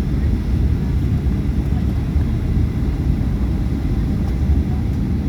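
Airliner landing: a steady, loud low rumble with no distinct engine whine or separate impacts.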